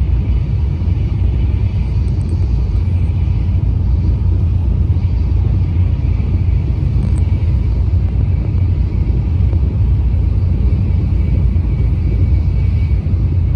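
Steady low rumble of a Tokaido Shinkansen train running at speed, heard from inside the passenger cabin.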